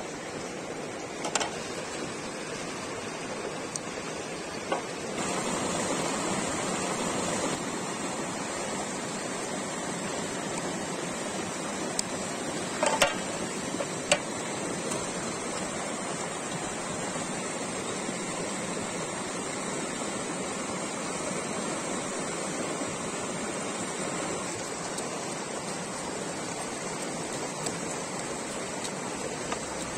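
Stream water rushing steadily, with a few brief clicks about a second in and again around twelve to fourteen seconds in.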